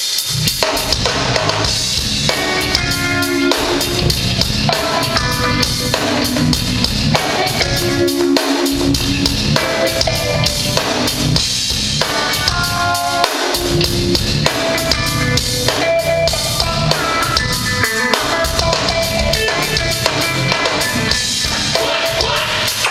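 Music driven by a drum kit, with bass drum and snare keeping a steady beat under short pitched melodic phrases.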